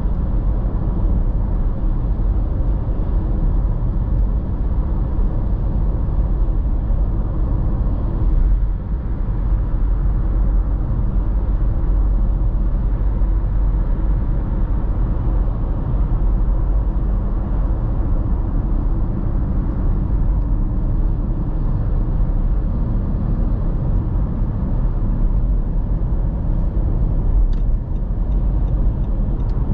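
Steady low rumble of a car cruising at motorway speed, heard from inside the cabin: tyre and engine noise.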